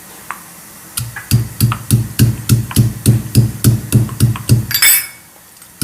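Pestle pounding whole dry spices in a mortar to powder them: a steady run of about fourteen dull thuds, close to four a second, starting about a second in. A brief scraping sound follows.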